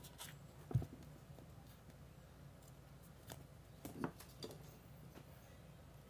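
Beyblade top being handled on a wooden table: a knock about a second in, then a few faint clicks of its parts between about three and four and a half seconds.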